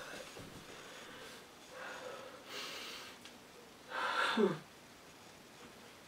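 A man breathing heavily in acted grief: a few loud, noisy breaths, then about four seconds in a short sobbing moan that falls in pitch.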